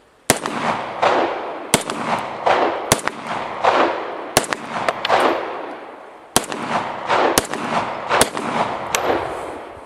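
Star 9 mm semi-automatic pistol, a 1911 clone, firing eight shots of Speer Lawman 9 mm Luger: four in quick succession, a pause of about two seconds, then four more. Each shot trails a long echo. The pistol cycles every round without a stoppage.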